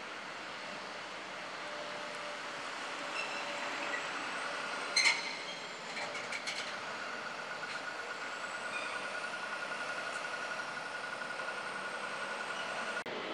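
Street traffic with lorries passing, mixed with a hydraulic excavator working. A sharp metallic clatter comes about five seconds in, and a steady thin whine sounds through the second half.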